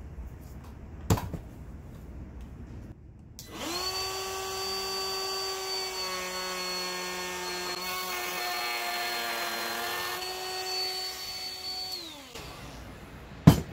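Ryobi trim router fitted with a 45-degree chamfer bit starting up to a loud, steady high whine, cutting a chamfer along a red oak board in the middle stretch, then winding down in pitch as it is switched off. A click comes a few seconds before it starts, and a sharp knock just after it stops.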